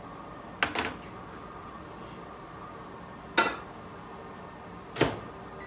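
Three sharp clinks and knocks, the first a quick double, about a second in, near the middle and near the end: a glass measuring cup of liquid soft plastic being handled and the microwave door it is heated in being opened and shut.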